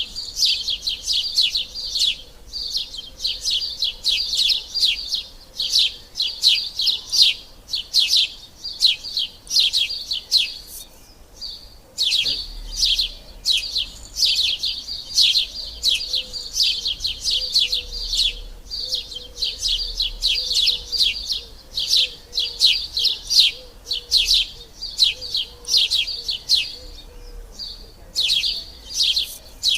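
Sparrows chirping in quick runs of short, high chirps, several a second, with brief pauses about eleven seconds in and again near the end.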